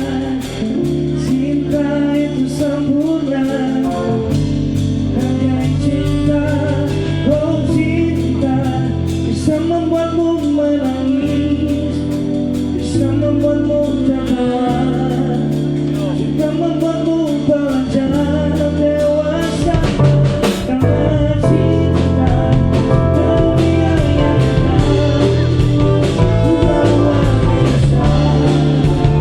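Live band playing a song, a singer over drum kit, guitar and bass. The music grows fuller and a little louder about two-thirds of the way in.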